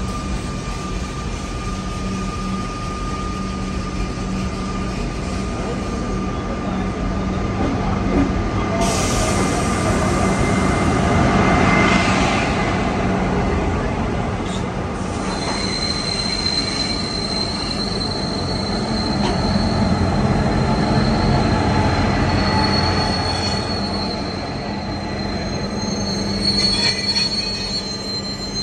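SSR P-class diesel-electric locomotives and maintenance wagons rolling slowly past on the rails, engines running with a steady low hum. From about halfway through, a high steady wheel squeal from the wheels on the track.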